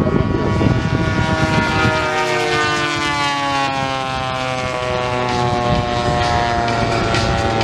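Engines of radio-controlled scale Spitfire model aircraft in flight, with propeller drone; the pitch falls as a plane passes, then holds steady.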